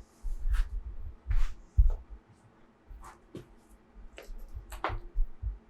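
A few short, scattered clicks and rustles over intermittent low thuds, with no speech.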